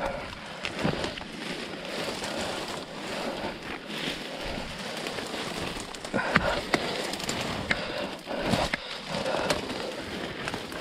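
Bramble stems and hedge twigs rustling and crackling as a person pushes and lowers himself through a dense bramble hedge, with louder bursts of snapping about six seconds in and again near eight and a half seconds.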